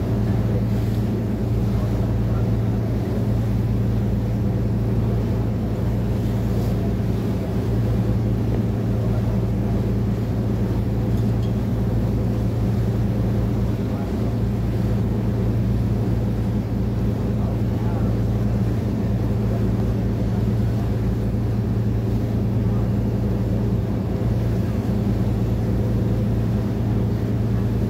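A boat's engine running steadily under way, heard from on board: an even, unchanging low hum made of several steady tones.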